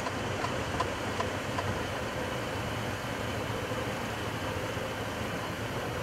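Steady rumble and rush inside a Boeing 737-800 cockpit during the landing rollout: its CFM56-7B engines and the wheels rolling on the runway, with a faint steady hum and a few light clicks in the first couple of seconds.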